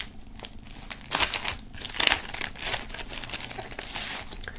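Clear plastic film wrap crinkling as a sheet of stickers is handled and pulled out of its sleeve. Irregular crackles that are loudest a second or two in, then lighter.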